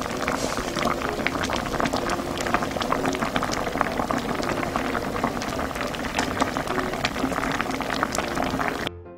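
Soybean paste stew (doenjang-jjigae) bubbling at a hard boil in an earthenware pot, with a dense crackle of small popping bubbles. The boiling cuts off just before the end, and piano music begins.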